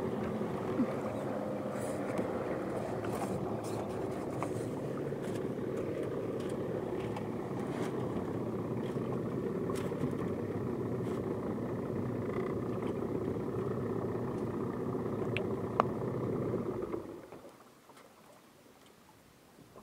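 Fishing boat's outboard motor running steadily, then cut off about seventeen seconds in.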